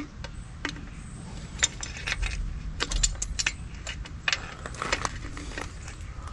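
E-bike controller wiring harness being handled: plastic connectors and cables clicking and rattling against each other in an irregular scatter of sharp clicks.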